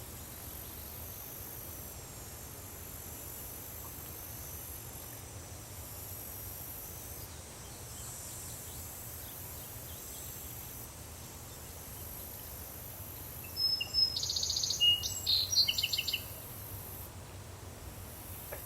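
Forest ambience: a steady background hiss, with a high insect drone that stops and starts every few seconds. A bird sings one loud burst of rapid, varied notes for about three seconds past the middle.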